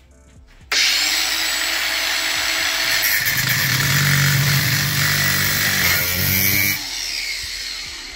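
Cordless angle grinder starting abruptly and grinding through the steel shell of a spark plug held in a vise. Its note deepens and strengthens partway through as the disc bites harder. Near the end it is switched off and winds down.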